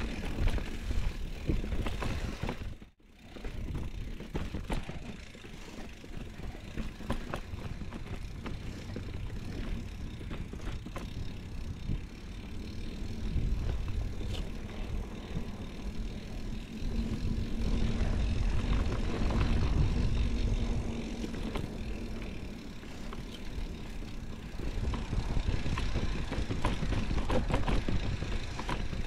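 Mountain bike rolling along dirt singletrack, with wind buffeting the camera microphone as a steady low rumble, tyre noise on the dirt and frequent small clicks and rattles from the bike. The sound drops out briefly about three seconds in.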